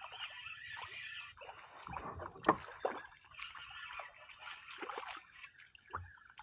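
Knocks and rattles of gear being handled in a fishing kayak, with light water movement against the hull; the loudest knock comes about two and a half seconds in.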